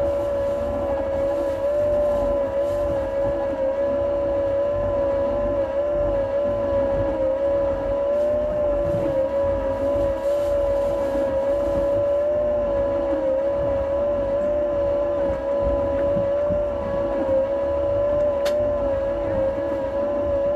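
Engine running steadily at a constant speed, a loud drone with a high, slightly wavering whine over a low rumble. A short click near the end.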